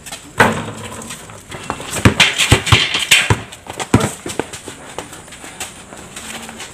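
Basketball dribbled on a concrete court, with irregular bounces and players' footsteps on the concrete. There is a short burst of noise between about two and three seconds in.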